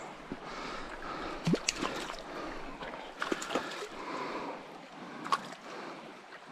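Small mountain stream running and gurgling, with a few sharp splashes as a hooked brown trout thrashes at the surface on the line, the loudest about one and a half seconds in and again near the end.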